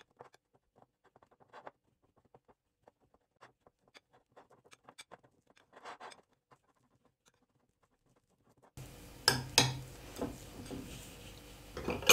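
Metal spoon stirring sticky desiccated coconut and condensed milk in a glass bowl: faint soft scraping and light taps against the glass. Near the end the background hiss gets louder and there are two sharp knocks.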